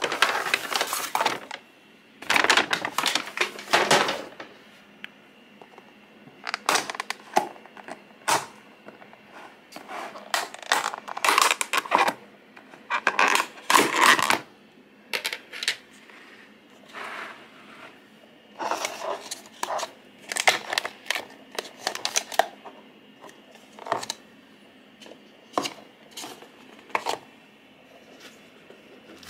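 A paper carrier bag rustling and plastic takeaway containers being handled and set down on a wooden desk, in irregular crinkles and clicks with short pauses between.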